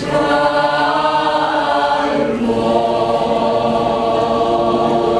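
High school choir singing in harmony. The voices come in loudly right at the start on a held chord and move to a new sustained chord about two seconds in.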